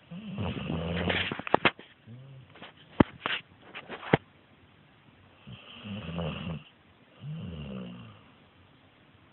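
Snoring: about four long snores with a low buzzing pitch. A few sharp clicks come between about one and four seconds in.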